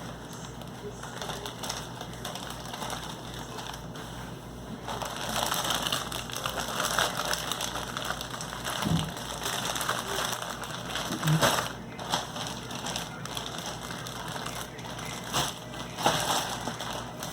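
Plastic snack wrappers crinkling and rustling as they are handled, with scattered sharp crackles, the crinkling getting busier about five seconds in.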